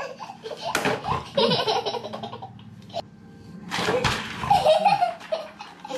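A toddler girl laughing, in two bouts, about a second in and again about four seconds in.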